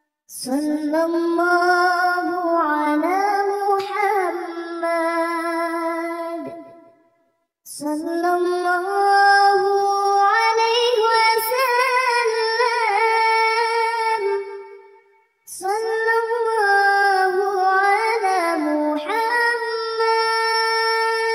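A high, child-like singing voice, unaccompanied, chanting a salawat melody in three long drawn-out phrases with held notes and wavering ornaments, with a short silence between phrases.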